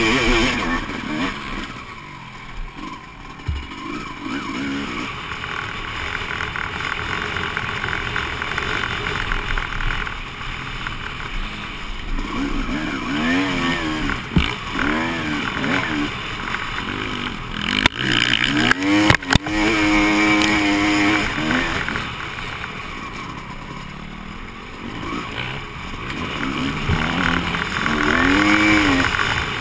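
Honda CR250 two-stroke motocross engine revving hard and dropping back again and again as the rider accelerates, shifts and shuts off around the track. There is a rushing haze throughout and a few sharp knocks just past the middle.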